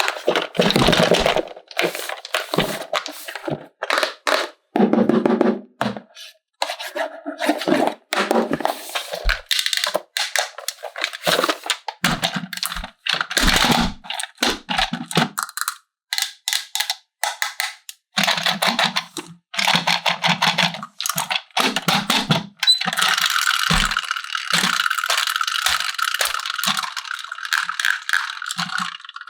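Plastic toy parts and packaging being handled: a long string of clicks, knocks and scrapes with short pauses between them, turning into a steady hiss for the last few seconds.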